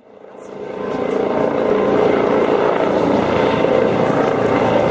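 Eurocopter EC135 rescue helicopter flying overhead, its rotor and turbine noise fading in over the first second or so and then running steadily.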